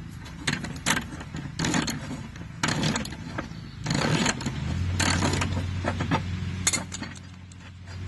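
Wrench and metal blade hardware clinking and rattling as a mower blade is unbolted from the deck, in a string of short bursts about a second apart; a steady low hum starts about halfway through.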